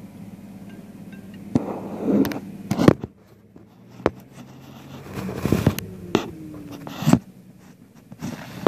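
Irregular knocks, clicks and scraping rubs from handling inside a pickup truck's cab, over a steady low hum that thins out about three seconds in.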